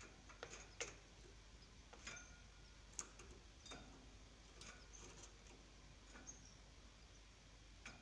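Near silence broken by faint, irregular small clicks and ticks, roughly one a second. A few of them carry a brief, high chirp-like tone.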